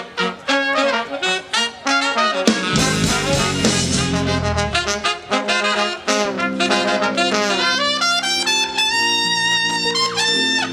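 A live brass band, with trumpet, trombone and saxophone, plays quick rhythmic riffs over drums. There is a loud crash with heavy bass about two and a half seconds in. Near the end the horns move to long held notes.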